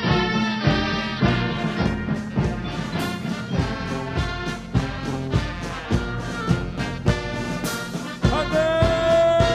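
Military brass band playing a march, with brass over regular drum beats. Near the end a long note is held.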